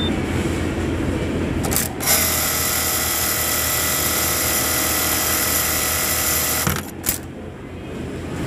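Brother HE-800B-2 electronic buttonhole sewing machine stitching a buttonhole on its two-cycle program. A low hum gives way, about two seconds in, to a steady high-pitched whine at full sewing speed. The whine lasts about five seconds and stops with a sharp click.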